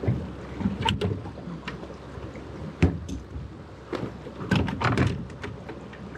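Knocks and clunks in a fishing boat over a low rumbling noise: light clicks about a second in, one sharp knock about three seconds in, and a quick run of clunks near the end.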